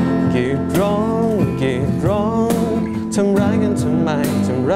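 Live acoustic band music: a strummed acoustic guitar with keyboard, and a voice singing a sliding, wavering melody over it.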